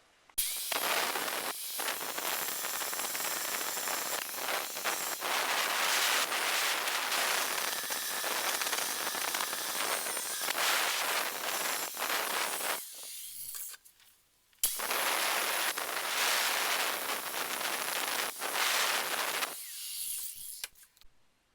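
Angle grinder cutting steel: two long cuts, about twelve and five seconds, each starting abruptly and tailing off as it stops.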